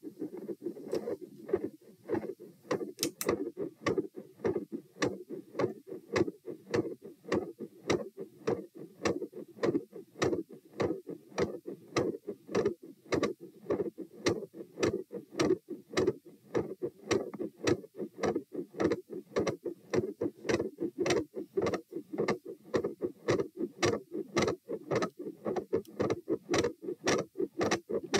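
Heart sounds heard through a stethoscope at the tricuspid area: a steady, regular lub-dub heartbeat. Each beat comes through as a pair of short thuds.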